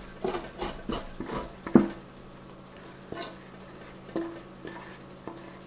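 A spatula scraping and knocking against a stainless steel mixing bowl as sticky dough is worked out of it: a series of sharp clanks, several leaving the bowl ringing briefly, between scraping sounds. The loudest clank comes a little under two seconds in.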